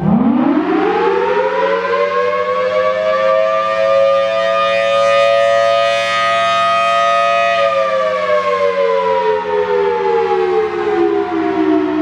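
Federal Signal Thunderbolt 1000T rotating outdoor warning siren sounding the attack signal. It winds up fast from a low pitch right at the start and holds a high steady wail for a few seconds. About two-thirds of the way through it begins a long slow wind-down, its loudness swelling and dipping a little as the horn turns.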